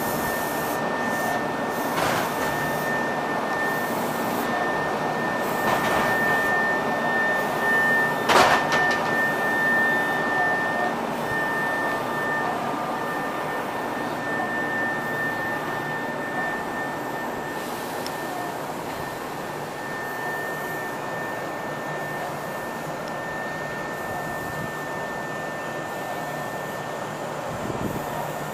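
Steady whirring hum of a standing Meitetsu 1200-series electric train's onboard auxiliary equipment, with a thin high tone that comes and goes. A few sharp knocks sound in the first several seconds, the loudest about eight seconds in.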